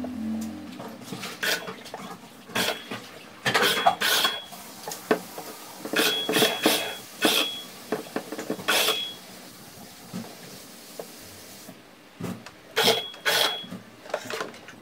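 A series of short knocks and metallic clinks, about a dozen, many with a brief ringing note, from a drill and metal tools being worked against the MDF panels of a cabinet carcass. They come in quick clusters, with a quieter pause of two seconds or so before a last few near the end.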